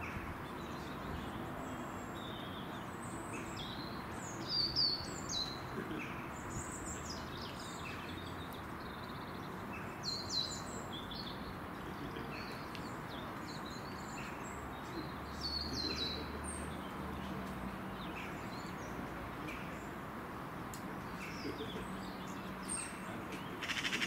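Small birds chirping and calling in short, scattered bursts of high notes, over a steady background hiss.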